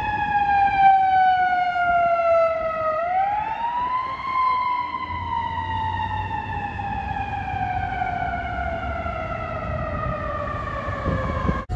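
Emergency vehicle siren on a slow wail: one pitched tone that falls steadily, swings back up about three seconds in, then slides slowly down again until it cuts off near the end. Low traffic rumble underneath.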